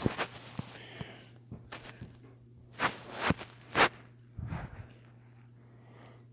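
Three short scuffs about half a second apart near the middle, then a softer one, over a steady low hum.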